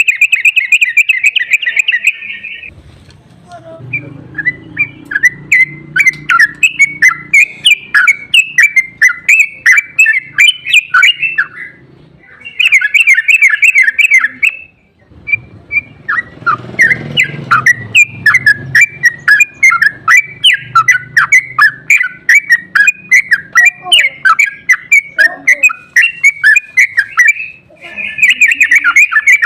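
Yellow-vented bulbul (trucuk) song in long, rapid chattering runs, the 'ropel' call used as a lure to draw other trucuk into calling. Denser, faster bursts come at the start, about halfway and at the end, with a low rumble beneath the longer runs.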